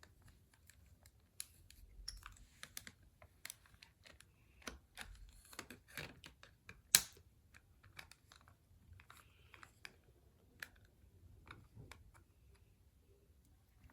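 Irregular small clicks and taps of hard plastic toy parts being handled and worked loose, with the sharpest click about seven seconds in.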